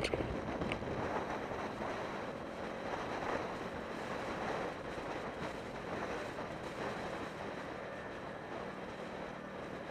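Wind rushing over a helmet-mounted camera on a moving motorcycle, with the Yamaha YZF-R125's single-cylinder four-stroke engine running steadily underneath. A brief bump right at the start.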